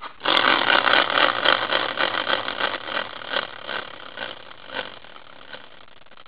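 A hand-spun prize wheel made from a caster wheel on a metal bracket, whirring with a rhythmic ticking. The ticks slow and the sound fades over about five seconds as the wheel winds down.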